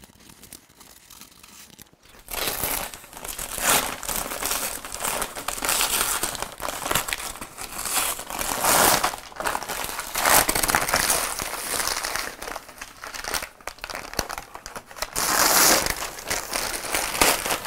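Brown paper wrapping crinkling and tearing as it is pulled off a cardboard box. The rustles and rips come in uneven surges, starting about two seconds in.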